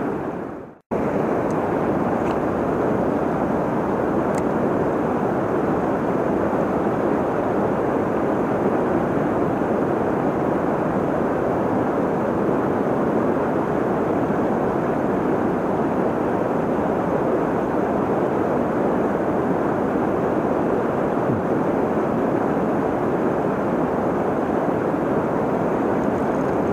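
Steady rushing of river water, an even unbroken noise that cuts out briefly about a second in and then runs on unchanged.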